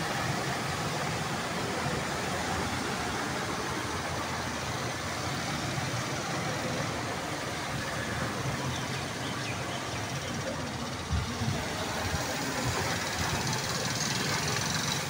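Steady hiss of rain and running floodwater, with small motorcycle engines passing through the flooded street. A couple of dull thumps about eleven seconds in.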